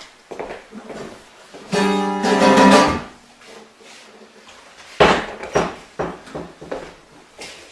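Plucked-string music, guitar-like: a chord held for about a second starting near two seconds in, then a run of separate plucked notes from about five seconds on.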